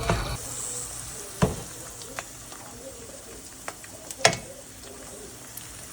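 Food frying in a pan, a steady sizzle, with a few sharp clicks; the loudest click comes about four seconds in.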